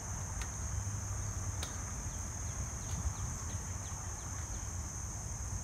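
Steady high-pitched drone of insects, with a low rumble underneath and a few faint short chirps around the middle.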